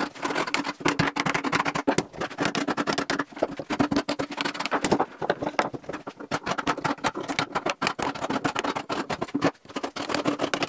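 Wood chisel chipping bark off a clamped log, with quick taps of a hammer on the chisel handle and scraping as the blade is pushed along. There are many rapid clicks and knocks.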